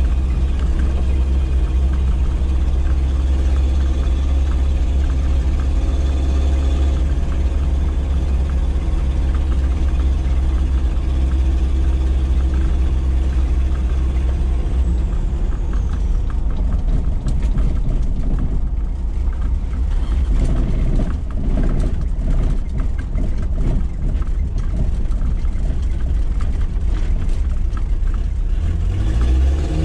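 Inside the cabin of a Dodge Raider driving under the power of its rebuilt Mitsubishi 4D55 four-cylinder turbo-diesel, with a steady low engine drone. About halfway the drone thins and the body clatters and knocks over a rough track; near the end the engine revs rise.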